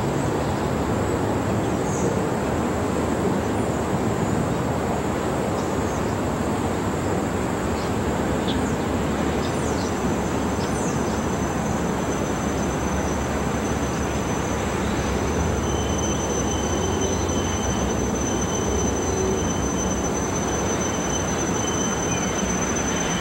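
Freight train cars rolling slowly over jointed track, a steady rumble of wheels on rail. A thin high wheel squeal comes in about halfway through and grows stronger, with a fainter lower squeal joining later.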